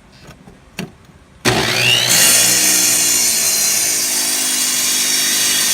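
Electric masonry saw switched on about a second and a half in, its motor whining up to speed, then running loud and steady as it cuts a 45-degree miter through a stone sill, cut dry without water.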